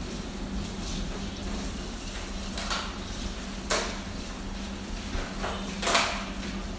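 Dishes being washed by hand at a kitchen sink: tap water running, with a few knocks and scrapes of plates and bowls, the loudest near the end. A steady low hum runs underneath.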